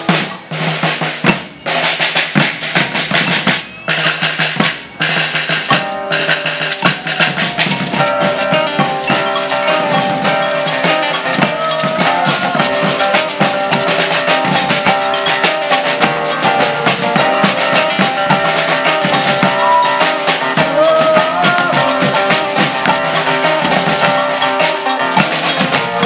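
Maracatu percussion ensemble playing: alfaia bass drums, snare drums and shakers (metal tube shakers and beaded gourd agbês). In the first few seconds the group plays accented phrases broken by short stops, then settles into a steady, unbroken groove about six seconds in.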